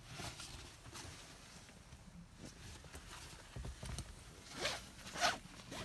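Soft rustling and handling of a bag in a lap as it is gone through by hand, with two louder short scrapes about four and five seconds in.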